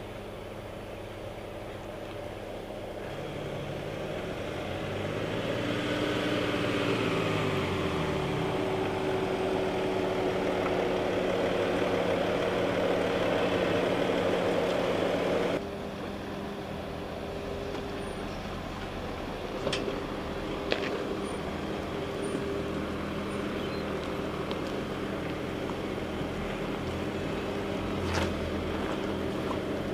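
Mercedes-Benz G-Class engine running at low speed, its pitch rising and then falling away about a quarter of the way in. The sound cuts abruptly to a quieter, steady engine hum about halfway through, with a few short sharp clicks later on.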